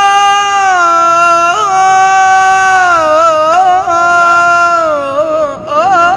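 A young man singing an Iraqi Arabic song, holding one long note that steps down in pitch, then breaking into ornamented, wavering turns in the second half.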